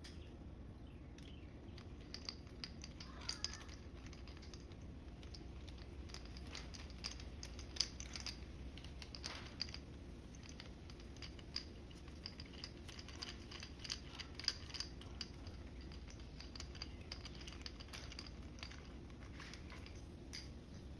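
Faint, irregular small clicks and taps, the sound of hand work on small trimmer parts, with the sharpest ticks about eight and fourteen seconds in. Short high chirps come and go over a steady low hum.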